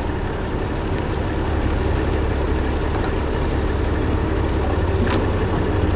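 Heavy diesel engine running steadily with a low rumble, and a brief knock about five seconds in.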